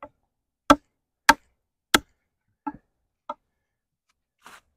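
A thick D2-steel tanto fixed-blade knife chopping into a wooden log, making sharp woody chops. Three hard strikes come about half a second apart, followed by two lighter ones and a soft one near the end.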